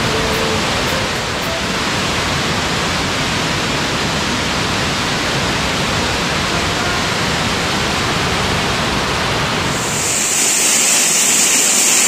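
Waterfall: a loud, steady rush of falling water with no break. About ten seconds in, the low rumble drops away and a brighter hiss remains.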